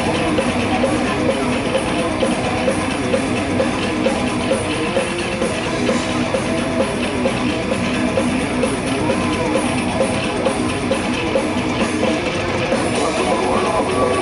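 Live rock band playing loudly, with electric guitars, bass and drum kit, heard from among the crowd. The music runs on with a steady, driving beat.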